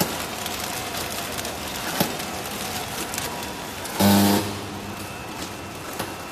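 Flow wrap packing machine running, a steady mechanical noise with a sharp click about every two seconds. A loud buzz lasts about half a second, about four seconds in.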